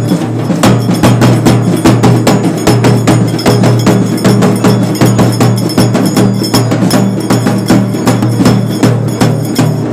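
Live procession drumming: dappu frame drums beaten with sticks together with a metal-shelled drum, playing a loud, fast, dense rhythm without a break.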